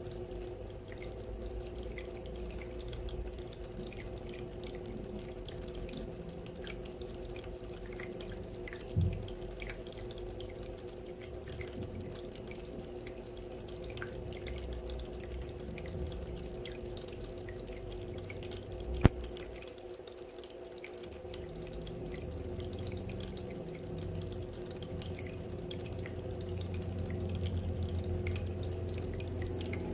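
Small decorative water fountain trickling and dripping steadily, over a steady low hum. A single sharp click about two-thirds of the way through, and a brief thump about a third of the way in.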